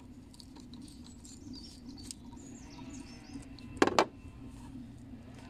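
Old rubber boost hose squeaking and creaking as it is twisted and worked off its pipe, stuck on with gunk. There are two sharp knocks close together about four seconds in.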